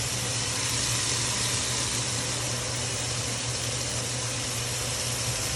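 Chicken and vegetables in sauce sizzling steadily in a frying pan, an even hiss, over a steady low hum.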